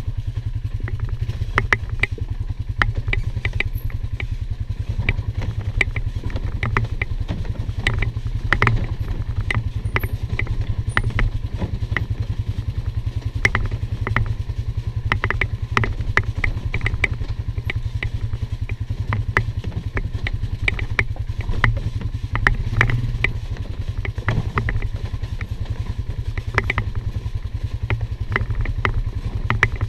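2019 Polaris Sportsman 450 ATV's single-cylinder engine running steadily under load on a rocky trail climb. Frequent irregular clicks and clatter come from rocks under the tyres and the rattling machine.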